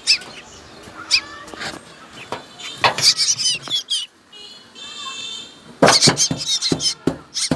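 Black drongo nestlings begging: clusters of short, shrill, high chirps and squeaks from several chicks, with a held, even-pitched note midway and a dense burst of chirping near the end. The chicks are hungry and calling for food.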